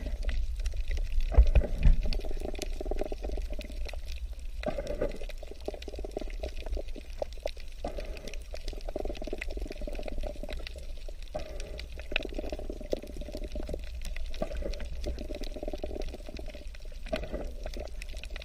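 Water splashing and gurgling in many small irregular splashes, over a steady low rumble.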